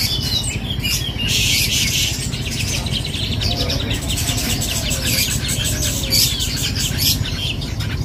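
Caged kapas tembak songbird singing its rapid-fire 'tembakan' burst: a long run of very fast repeated high notes, with other songbirds warbling alongside and a steady low market rumble underneath.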